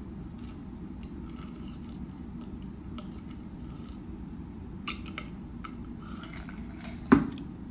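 A person drinking from a glass in gulps, with faint wet swallowing clicks over a steady low hum. One sharp knock comes near the end.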